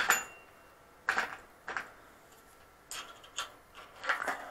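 Scattered light metallic clicks and knocks, several in a few seconds, from tools and parts being handled while adjusting a road bike's headset top cap.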